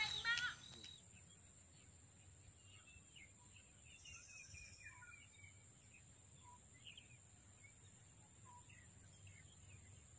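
Faint outdoor ambience: scattered short bird chirps over a steady high-pitched hum.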